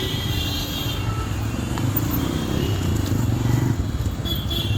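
Road traffic noise: vehicle engines running with a steady low rumble.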